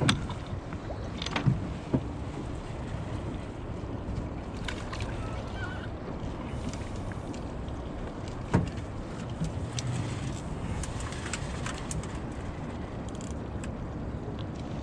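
Steady wind on the microphone and water moving against a fishing boat's hull, with a few sharp knocks; the loudest comes about eight and a half seconds in.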